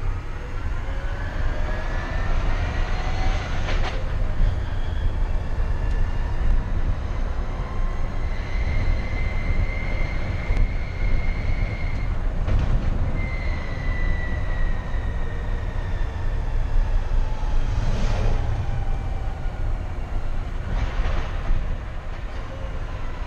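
Electric drive motor of a Peterbilt Model 579 electric truck whining under way, heard inside the cab over a steady low road rumble. The whine rises in pitch as the truck accelerates, breaks off a few seconds in and again about halfway as the Eaton AutoShift automated transmission changes gear, then falls in pitch as the truck slows.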